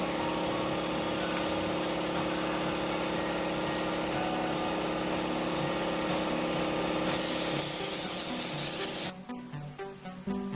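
A small motor running steadily with a hum. About seven seconds in, a loud hiss of air or spray joins it for about two seconds; then both cut off abruptly and music begins.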